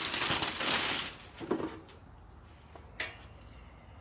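Rummaging among tools: a loud rustling clatter for about a second, a shorter clatter a moment later, then a single sharp click about three seconds in.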